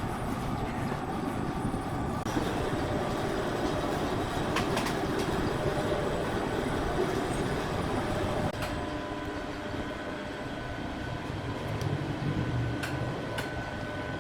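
Heavy machinery running steadily, with scattered clicks and knocks. The sound changes about two seconds in and again at about eight and a half seconds.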